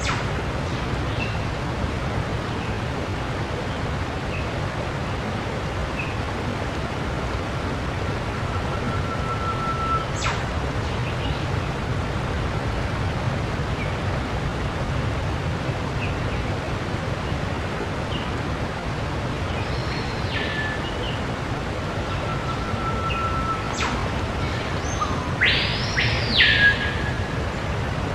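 A steady low rushing noise with scattered short, high whistles and chirps over it. Near the end comes a louder pair of swooping whistles that rise and fall.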